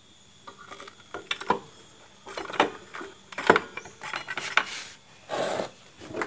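Metal clinks and knocks of tools and scooter CVT clutch parts being handled during reassembly, with a short scraping rustle a little past five seconds in.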